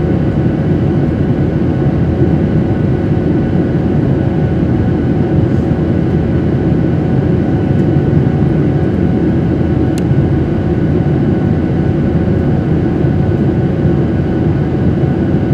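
Steady in-flight cabin noise of a Boeing 737-800: the drone of its CFM56 turbofan engines and the rush of air along the fuselage, heard from a window seat, with a few faint steady tones over it. A faint click comes about ten seconds in.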